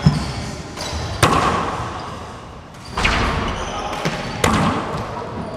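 Small rubber handball struck by hand and rebounding off the walls and wooden floor of an enclosed four-wall court. There are about four sharp smacks one to two seconds apart, each with a short echo.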